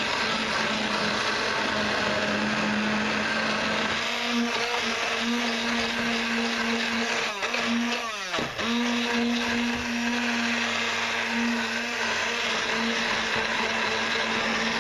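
Hand-held immersion blender running in a steel pot, puréeing pumpkin and coconut-milk soup until foamy. The motor hums steadily, briefly slows and speeds back up about eight seconds in.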